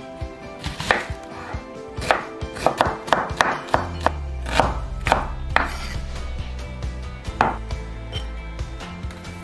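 A chef's knife chopping an onion on a wooden cutting board, in a run of uneven, quick knife strikes. Background music plays underneath, with a bass line coming in about four seconds in.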